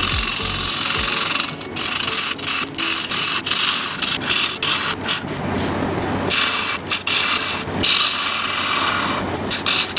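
Bowl gouge cutting spalted beech on a spinning wood lathe: a steady scraping hiss of shavings coming off the bowl, broken many times by brief gaps as the tool lifts off the wood.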